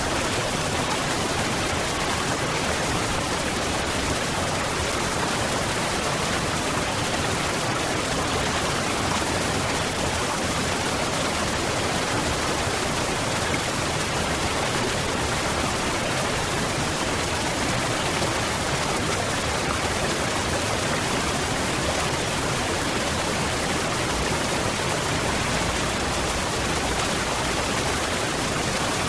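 Waterfall: a steady rush of falling water, an even hiss with no breaks or changes.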